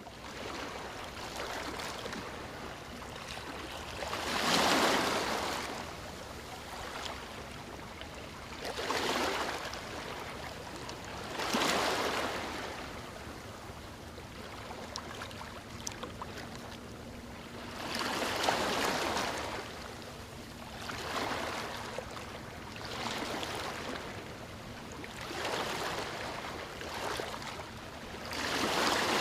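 Small waves washing onto a sandy beach: a steady hiss of surf with a wash swelling and fading every few seconds as each wave breaks and runs up the shore.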